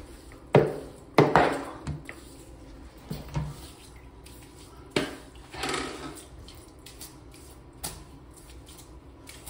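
Knocks and clatters of handling things around a toilet during a messy repair, with splashing water; the loudest knocks come about half a second and a second in, with a longer wet, splashy stretch around the middle.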